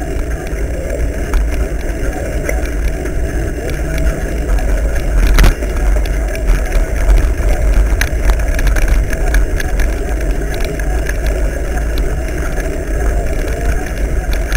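Wind rumble on the microphone with the rattle and knocks of a mountain bike riding over a rough dirt track, picked up by a camera mounted on the bike. One sharp knock about five and a half seconds in.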